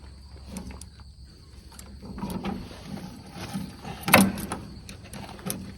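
Scattered light metallic clicks and a sharp knock about four seconds in, from hand work on a combine's roller drive chain and its connecting link.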